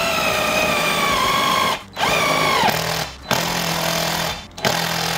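Cordless impact driver running in four trigger bursts with short breaks, its motor whine and rapid hammering blows driving a self-drilling screw through sheet steel.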